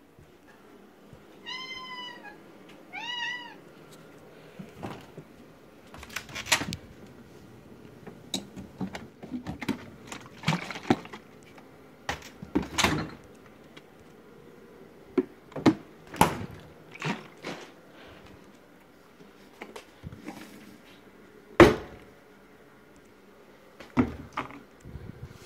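Two short, high squeaky calls about a second apart, then a long string of knocks, clicks and rattles as a fridge and wooden kitchen cupboard doors are opened and handled. The loudest is a single sharp knock late on.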